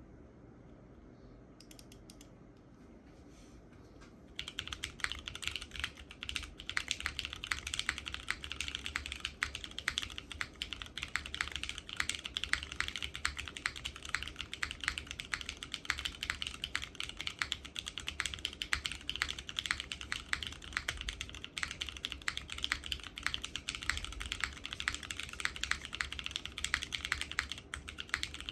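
Continuous fast typing on a custom mechanical keyboard (SINGAKBD Kohaku R2) with lubed tactile switches built from Cherry Hyperglide housings and Razer Orange stems, on a PP leaf-spring plate with GMK keycaps and no foam. The keystrokes begin about four seconds in, after a low hum, and run as a dense stream of clacks.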